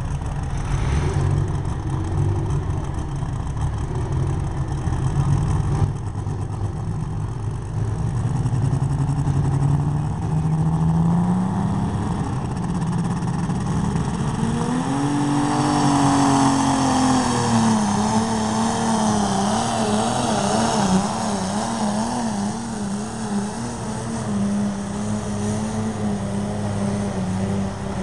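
Modified Allis-Chalmers pulling tractor's engine of just over 300 cubic inches running steadily at the starting line. About ten seconds in it revs up and climbs in pitch, then runs hard at high revs with a wavering pitch under the load of the pull.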